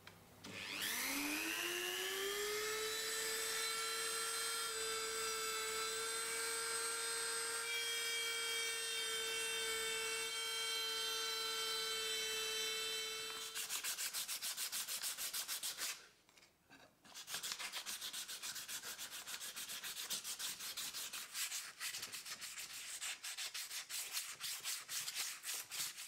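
A small electric motor spins up over about two seconds and runs at a steady whine, then cuts off about thirteen seconds in. Then abrasive paper is rubbed back and forth by hand over a metal half-shell of a coffee grinder's housing, in quick rasping strokes with a short pause after a couple of seconds.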